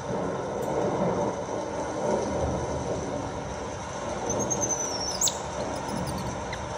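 Baby monkey's thin, high-pitched squealing cry, one falling squeal about four and a half seconds in that ends in a sharp upward-then-down sweep, over a steady rumbling noise.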